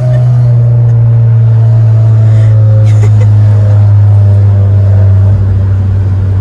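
Very loud aftermarket exhaust of a 9th-generation Honda Civic Si's 2.4-litre four-cylinder, heard from inside the cabin. It gives a heavy, steady drone whose pitch eases slowly downward as the revs drop.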